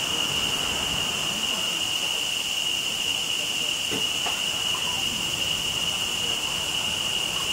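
Steady high-pitched drone of rainforest insects, an even buzzing tone that holds without a break.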